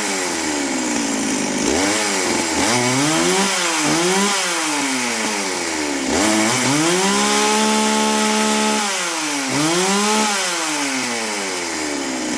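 Chainsaw engine revved up and down over and over, its pitch rising and falling about every second, held at high revs for about two seconds in the middle, then dropping back toward idle near the end.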